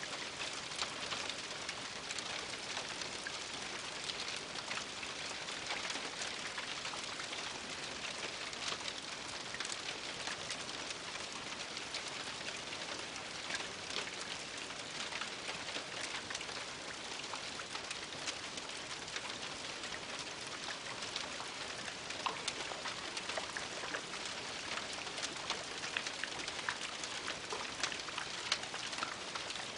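Steady rain falling on an attic roof, a constant hiss with many individual drops ticking sharply against it.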